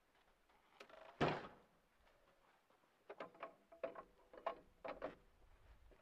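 A log being handled on the steel bed of a band sawmill: one heavy knock a little over a second in as the log is set down, then a string of lighter knocks and clanks about three to five seconds in as it is turned into position.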